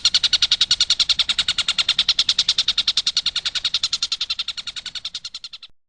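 Stork-billed kingfisher (tengkek buto) giving its rapid 'tembakan' rattle call, a fast, even train of high notes at about fourteen a second. It fades over the last second and cuts off abruptly near the end.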